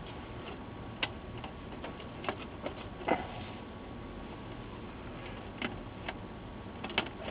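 Scattered light clicks and taps of monitor parts and cables being handled, about six irregular ticks over a steady low hiss, the loudest about three seconds in.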